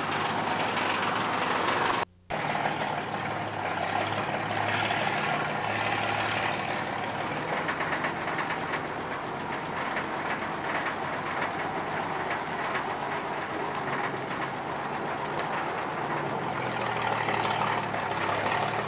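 Heavy truck engine running steadily under load as a 1954 pumper fire engine pulls a boat trailer onto the street. The sound cuts out briefly about two seconds in.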